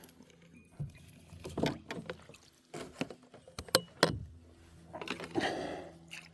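Light knocks, clicks and rattles of handling gear as a netted northern pike is lifted out of the landing net, with two sharper knocks about four seconds in and a brief rush of noise near the end.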